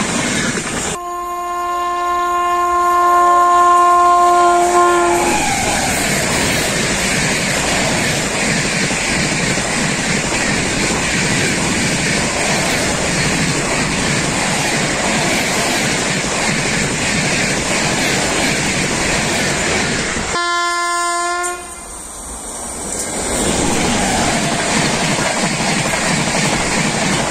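Indian Railways train horn sounding for about four seconds, dropping slightly in pitch as it ends, then the steady rumble and wheel clatter of passenger coaches passing close by at speed. A second, shorter horn blast sounds about twenty seconds in, followed by more passing-train rumble.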